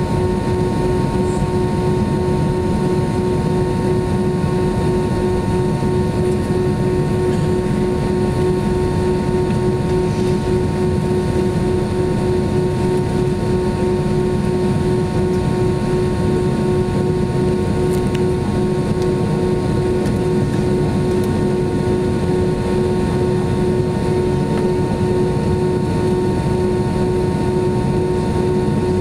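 Cabin noise of an Airbus A320-232 taxiing on its IAE V2500 engines: a steady rumble with two constant whining tones, unchanged throughout.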